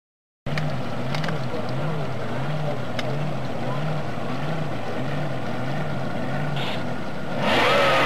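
Motorboat engines running on the river: a low drone that wavers about twice a second, then about seven seconds in a louder engine surges up with a rising whine and holds. The sound drops out for a moment right at the start.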